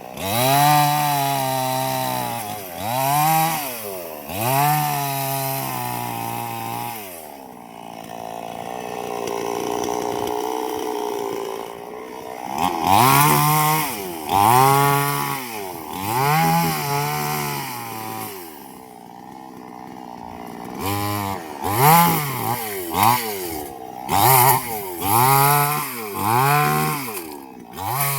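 Two-stroke chainsaw engine revving up and down over and over. Its pitch rises and falls in arcs, holds at a steadier, lower pitch for a few seconds about a third of the way in, and the revs come quicker, about one a second, near the end.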